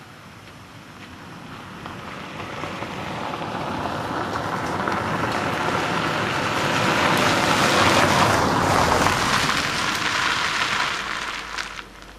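A car driving past on a gravel road, its tyres crunching on the gravel. It grows louder over several seconds, is loudest about eight seconds in, then fades as it moves away.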